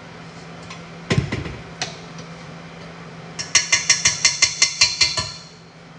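A knock about a second in, then a quick run of metallic clinks, about six a second for nearly two seconds: a stand mixer's wire whisk striking the stainless steel mixing bowl.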